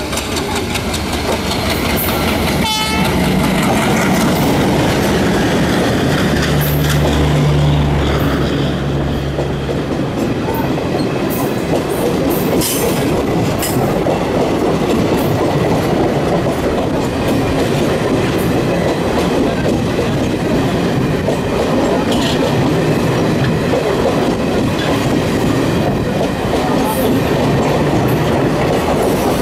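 A diesel-hauled passenger express passes close by on the adjacent track. Its locomotive goes by with a steady low drone for a few seconds, then the coaches roll past with a continuous rumble and wheel clatter over the rail joints.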